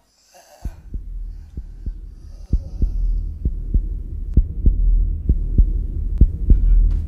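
A low throbbing drone with a heartbeat-like thump, about three beats a second, as tension sound design for film. It starts about half a second in after a moment of silence and grows louder.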